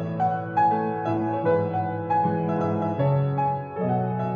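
Grand piano played with both hands: chords under a melody line, new notes struck about every half second and left to ring.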